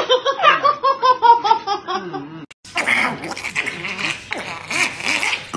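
Shiba inu screaming while held for an injection: a quick run of yelping cries, several a second, falling in pitch. At about two and a half seconds it is cut off by a chihuahua's harsher, noisier cries and growls as it is given medicine by syringe.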